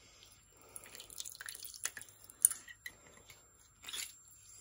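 Lemon juice dripping from a hand-held metal lemon squeezer into a bowl of sugar as the lemon half is pressed, with small sharp clicks and drips, the loudest about two and a half seconds in and again near the end.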